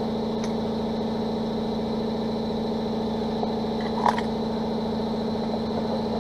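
A steady, unchanging motor hum, a machine running evenly without any change in load, with one short click about four seconds in.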